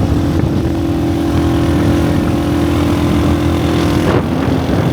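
Car engine running steadily while driving, a constant drone over low road rumble; its pitch drops briefly about four seconds in.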